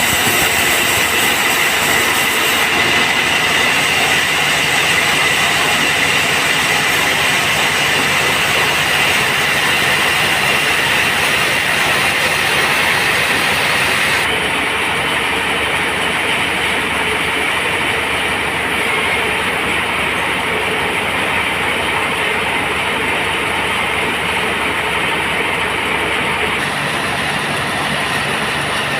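Band sawmill running and sawing teak: loud, steady machine noise that doesn't let up, its character shifting slightly about halfway through.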